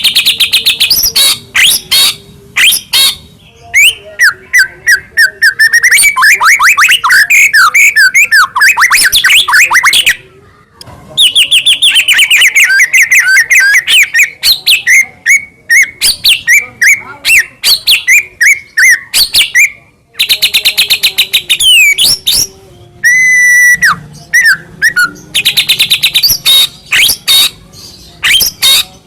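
White-rumped shama singing loudly and without let-up: a varied song of fast runs of repeated sharp notes and rapid trills, broken by a couple of short pauses, with a clear held whistled note past the middle.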